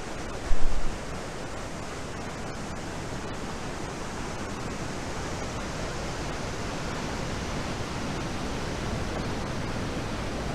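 Waterfall in heavy flood, swollen by hurricane rain from its usual trickle: a steady, even rush of falling water. A brief low thump on the microphone about half a second in.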